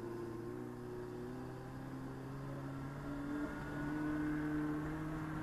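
Revolt RV400 electric motorcycle accelerating in its first riding mode, its built-in artificial engine sound switched on and rising slowly in pitch as speed climbs.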